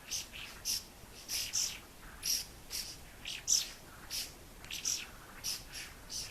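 Masked laughingthrush calling: a run of short, sharp, high-pitched calls, two or three a second, unevenly spaced, the loudest about halfway through.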